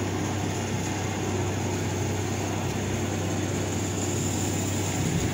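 Small motor of a canal tour boat running steadily with an even low hum.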